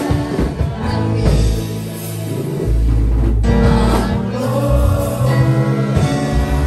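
Congregation singing a gospel hymn together over amplified instrumental backing with a strong bass line.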